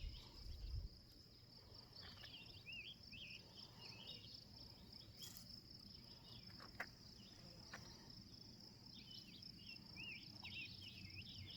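Near silence outdoors: a steady, faint high insect drone, like crickets, with scattered faint chirps over it and a single soft click about seven seconds in.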